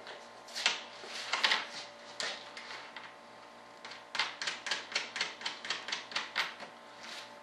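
Sharp clicks and taps of hand work at the edge of a fiberglass wing mold, scattered at first, then a quick run of them at about four a second from around four seconds in.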